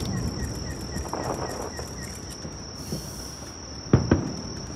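Distant fireworks: a crackle of small bursts in the first two seconds, then a single sharp boom about four seconds in with a short echo, over a steady high-pitched insect trill.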